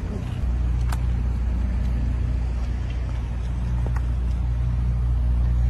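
An engine idling steadily nearby, a low, even drone that does not change, with a couple of faint ticks.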